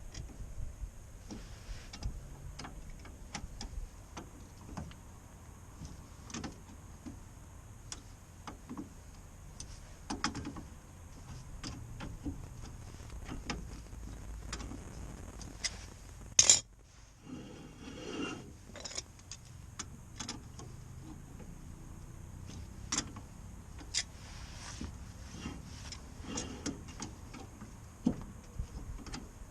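Irregular clicks and light metallic knocks of hand tools working on a car's front hub and steering knuckle, with one sharp, loud knock about halfway through.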